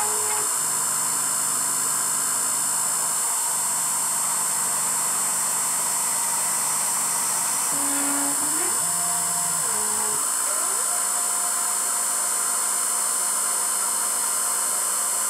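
Emco F1 CNC milling machine running a spot-drilling program in a cast iron backplate: a steady high-pitched spindle whine and hum, with the axis feed motors sounding short tones that glide up and down in pitch as the table moves between holes, just after the start and again about 8 to 10 seconds in.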